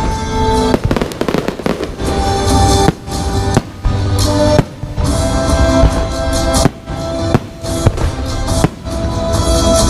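Fireworks show set to music: repeated sharp bangs and crackling over loud playing music.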